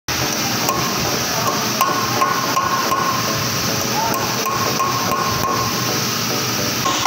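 A hammer drives a steel punch against a car's front wheel hub during a wheel bearing replacement. There are about ten sharp metal strikes, irregularly spaced, and they stop about two-thirds of the way through.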